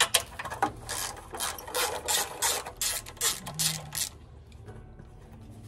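Hand socket ratchet clicking in quick short runs as screws are backed out of a Corvair engine's sheet-metal air cover. The clicking stops about four seconds in.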